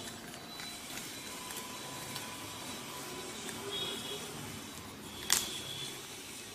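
Quiet handling of a mobile phone's parts during disassembly over a steady background hiss, with small ticks and one sharp click about five seconds in.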